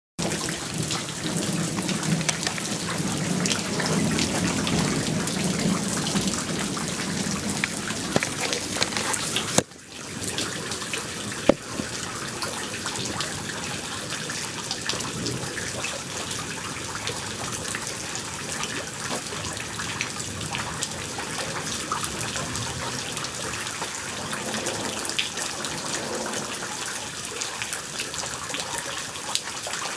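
Heavy rain falling steadily, with a low thunder rumble under it for roughly the first nine seconds. About ten seconds in the sound drops out for a moment, and a sharp click follows shortly after.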